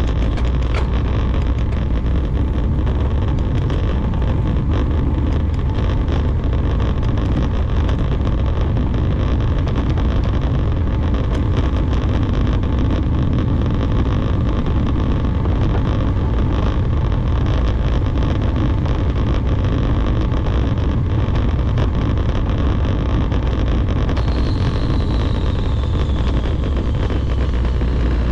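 Wind rushing steadily over a bike-mounted camera's microphone, with the rumble and small rattling clicks of a Specialized Roubaix SL2 road bike rolling over brick pavers.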